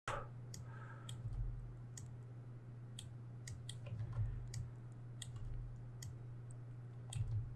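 Computer mouse clicking: a dozen or so sharp clicks at uneven spacing, over a low steady hum.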